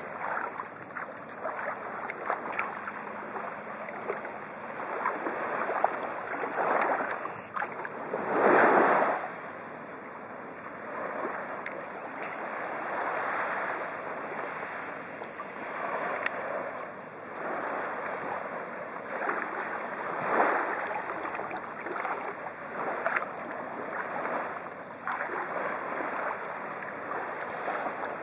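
Small waves washing gently on a sandy shore in calm shallow sea, swelling and falling every few seconds, with one louder wash about eight seconds in.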